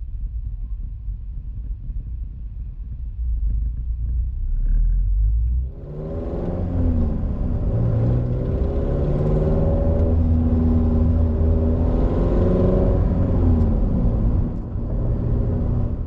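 Low road and engine rumble inside a car at highway speed. About six seconds in, a louder engine note joins, its pitch shifting up and down in steps, and it fades near the end.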